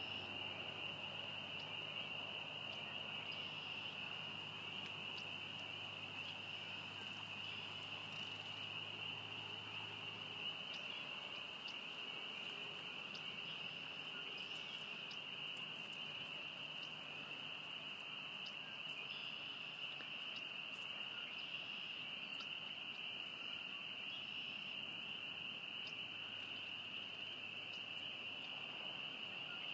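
A dense, steady chorus of frogs calling at one high pitch, with a faint low hum that stops about ten seconds in.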